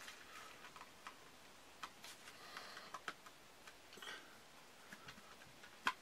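Faint rustling and scattered small clicks from fingers handling and flexing a stitched strip of leather, with a sharper click near the end.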